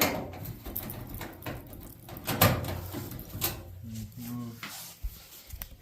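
Close handling noise: a run of knocks, scrapes and rustles, with two louder knocks about two and a half and three and a half seconds in.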